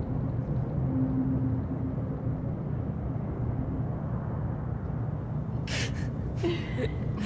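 Steady low rumble of a car heard from inside the cabin, with a short breathy laugh about six seconds in.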